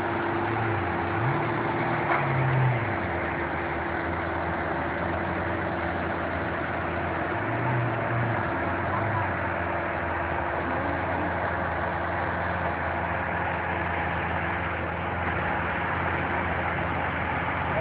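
A vehicle engine idling steadily, a constant hum that does not change.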